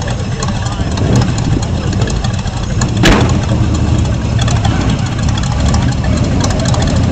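Hot rod pickup truck's engine running at idle with a steady low rumble, with one short, sharp, louder burst about three seconds in.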